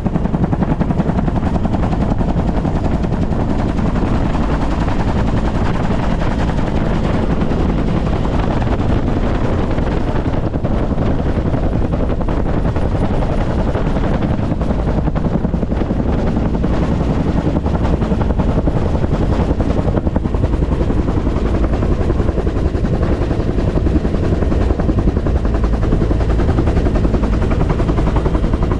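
Bell UH-1 Huey helicopter in low-level flight, heard from inside its open-doored cabin: the rapid, steady beat of the two-bladed main rotor over a loud, even rush of engine and air noise.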